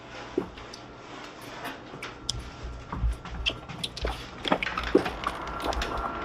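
Scattered light clicks and knocks of movement at a doorway, with low wind rumble on the microphone from about two and a half seconds in.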